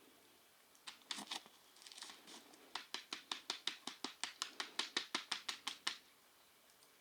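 A few scattered sharp clicks, then a quick, even run of about five clicks a second that stops suddenly about six seconds in.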